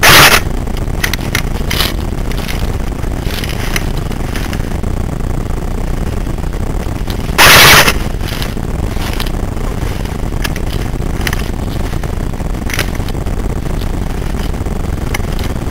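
Steady rumble of handling and movement noise on a gun-mounted camera's microphone, with scattered clicks. Two loud, distorted bursts about half a second long come at the very start and about seven and a half seconds in.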